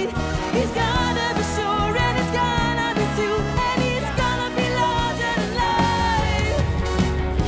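Rock band music with a steady drum beat and a singing melody line over the band.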